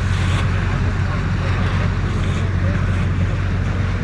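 A motor ship's engine running with a steady low hum, under an even rush of wind and water.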